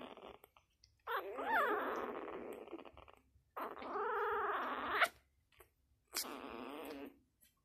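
Six-day-old Labrador puppies whining and squealing: three separate cries, the middle one rising and then falling in pitch.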